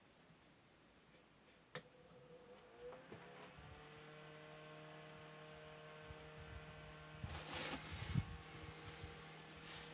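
A small electric desk fan is switched on with a click. Its motor hum rises in pitch as it spins up, then holds steady. A few knocks of handling sound out near the end.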